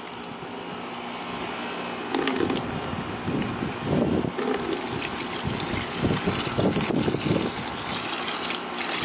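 Water gushing from a garden hose and splashing, louder from about two seconds in.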